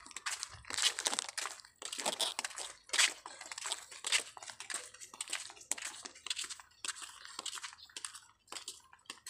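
Close, irregular crinkling and scuffing crackles, many a second, as the phone is carried while walking: handling or rubbing noise at the phone's microphone.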